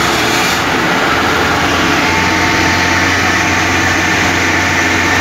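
Steady engine and road noise of a moving vehicle heard from inside the cabin. A low engine hum grows stronger about two seconds in.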